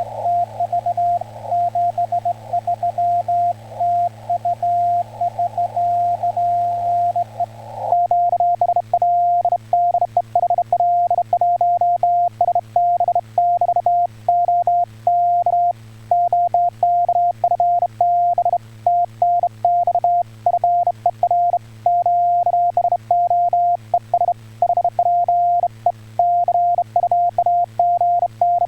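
Morse code (CW) in Korean Hangul code: a single tone of about 700 Hz keyed on and off in dots and dashes. For about the first eight seconds the tone is wrapped in hissy radio band noise, as received over the air. After that it turns clean, with sharp clicks at the keying, typical of sending on a straight key.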